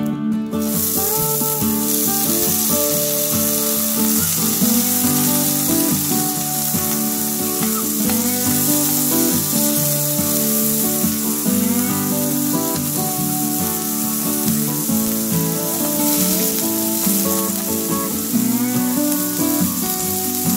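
Chopped red onion sizzling steadily in hot oil in a stainless steel pan, the sizzle starting abruptly about half a second in, with background music playing over it.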